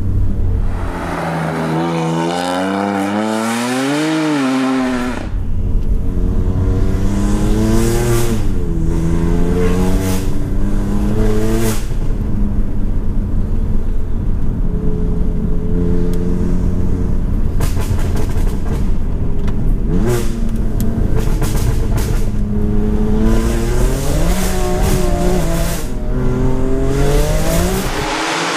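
BMW M4's twin-turbo straight-six with an Armytrix exhaust, heard from inside the cabin as the car accelerates hard through the gears. The engine note climbs in pitch and falls back at each gear change several times, with a steadier cruising stretch in the middle.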